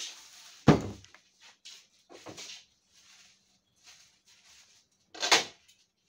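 Knocks and clatter of items being taken out of an open refrigerator, with plastic-bag rustling. There is a sharp thump less than a second in and another loud one near the end.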